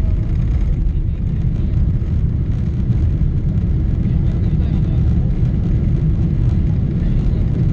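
Airliner cabin noise during the landing roll: a loud, steady low rumble from the aircraft running down the runway with its ground spoilers raised.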